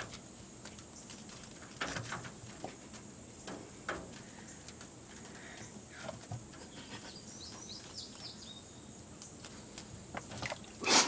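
Outdoor background with a few faint bird chirps around the middle and scattered soft rustles and taps, over a thin steady high tone.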